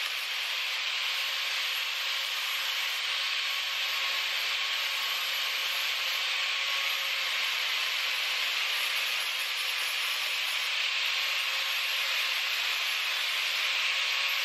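Guild angle grinder's abrasive disc grinding rust off a steel sprocket, a steady unbroken grinding hiss with a faint whine of the motor underneath.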